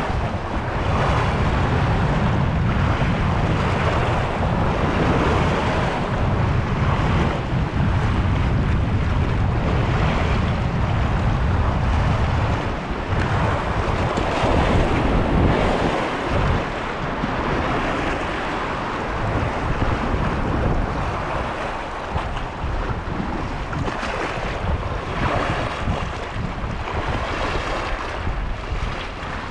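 Wind buffeting the microphone over choppy sea, with the wash of waves; the heavy low rumble of the wind eases off about halfway through.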